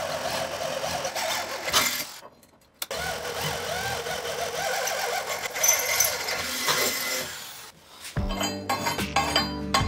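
Electric hand drill boring through steel angle iron, its motor whine wavering in pitch with trigger and load. It stops about two seconds in, starts again, and stops near the end. Then come a few sharp metallic clinks as the steel pieces are handled.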